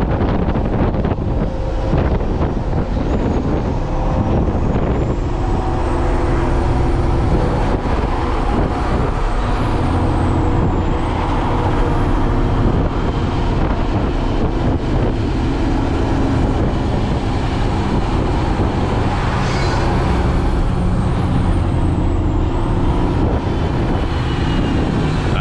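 Kenworth T800 dump truck's Cummins X15 diesel engine pulling along the road, heard from inside the cab with road noise. The engine note shifts in steps several times as the truck works through its gears.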